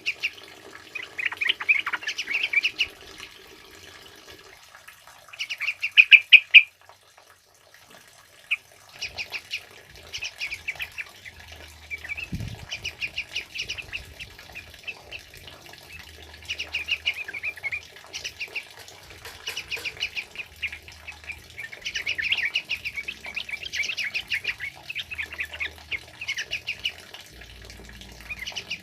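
Yellow-vented bulbuls (trucukan) singing in repeated bursts of rapid, chattering notes, with a short pause about seven seconds in before the song picks up again.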